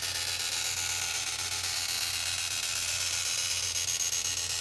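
Small benchtop bandsaw running and cutting through thin aluminum sheet: a steady, loud, high-pitched cutting noise over a low motor hum.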